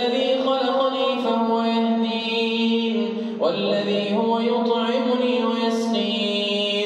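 A man reciting the Quran in a slow, melodic tajweed style, drawing out long held notes with ornamented pitch. One phrase is sustained, and a new phrase begins about halfway through.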